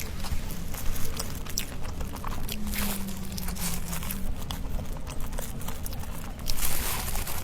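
Close-miked chewing and mouth sounds of someone eating pastries: many small wet clicks and smacks, a short low hum partway through, and a louder burst of rustling near the end.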